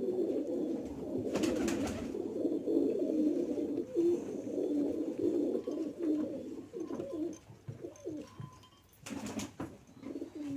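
Domestic pigeons cooing in a continuous low, wavering chorus that thins out and fades near the end. There are brief rustles about a second and a half in and again near the end.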